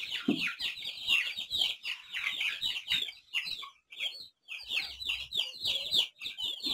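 A pen of young Aseel chicks, about a month to six weeks old, peeping together in many short, high, falling chirps that overlap one another, with a brief lull about four seconds in.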